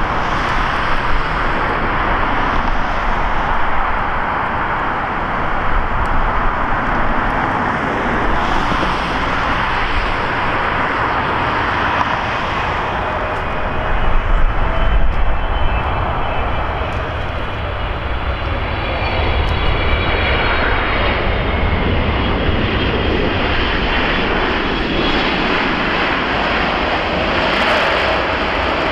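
Boeing 777-300ER's GE90-115B turbofans through approach, touchdown and landing rollout: a steady jet roar, loudest with extra low rumble around touchdown about halfway through. Faint high whining tones come in during the rollout.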